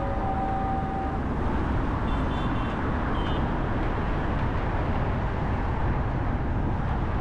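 Steady road and traffic noise of a car driving through city streets. A held tone with several pitches stops about a second in, and a few faint short high chirps follow.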